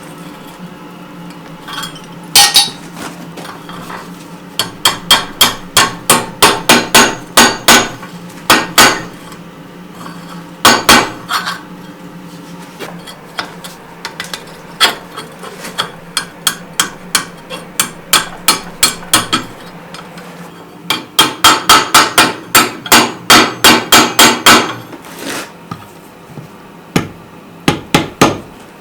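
Hand hammer blows on hot steel at the anvil: a rounding hammer striking a small square bar in runs of quick strokes, about three to four a second, with short pauses between runs. The longest, densest run comes a little past two-thirds of the way through.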